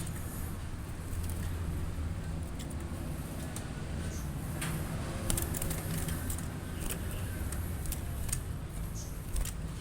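Cinereous tit (glatik batu) giving a few short, sharp high call notes, scattered from about halfway through to near the end, over a steady low rumble.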